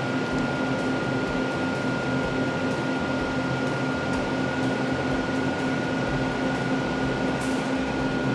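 Ninja dual-zone air fryer's convection fan running with a steady hum and a thin high whine, as the timer runs out and the machine goes into its cool-down.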